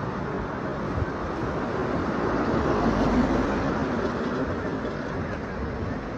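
Steady street noise with passing road traffic, swelling a little about three seconds in.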